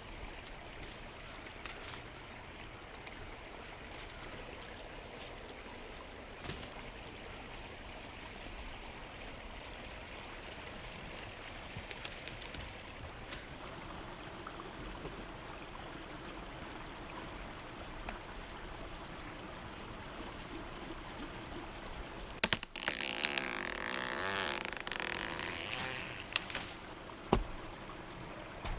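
Creek water running steadily, with a few sharp knocks and a louder rush lasting a few seconds near the end.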